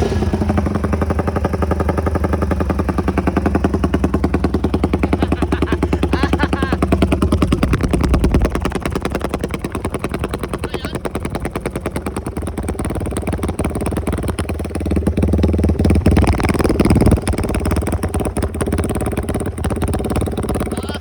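Raider motorcycle engine running with a fast, even exhaust beat, revved up a little twice, about a quarter and three quarters of the way through.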